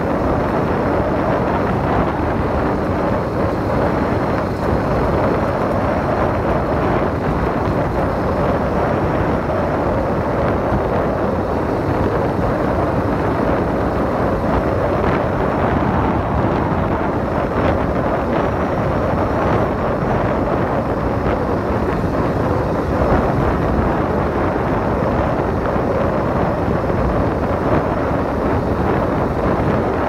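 Wind buffeting the microphone of a moving 80cc bike, over the small engine running steadily at cruising speed.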